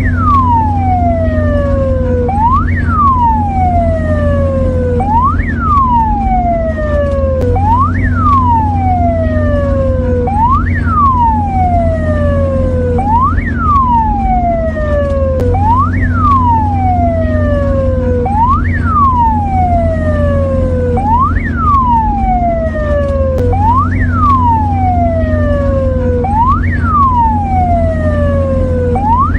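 Mexican ambulance siren sounding a repeating wail: each cycle jumps up quickly and slides slowly down, about once every two and a half seconds, over a steady low hum.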